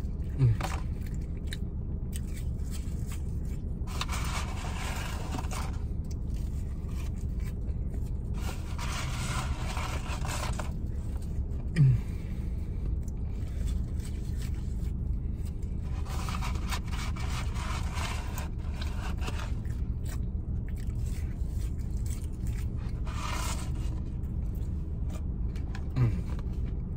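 Paper fry carton rustling and scraping in four bursts of one to two seconds, over the steady low rumble of an idling car. Three short hums break in, at the start, about halfway and near the end.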